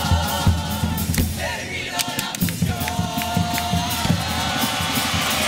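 A youth carnival comparsa chorus singing in harmony on long held notes, over a steady low drum beat.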